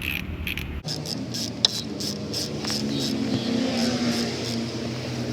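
Socket ratchet clicking in short, even back-and-forth strokes, about three a second, as the brake caliper's lower bolt is run in, with one sharper click early on.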